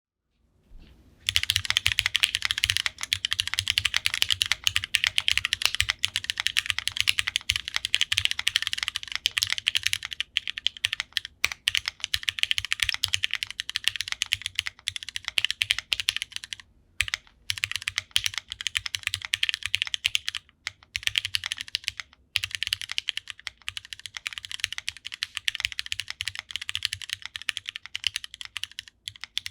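Fast continuous typing on a custom mechanical keyboard with an aluminium plate, lubed linear Cherry MX Black switches and GMK doubleshot ABS keycaps: a dense stream of key clacks with short breaks.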